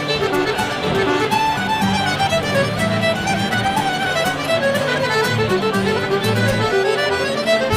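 Irish fiddle music: a fiddle playing a fast tune of quick running notes over a lower accompaniment.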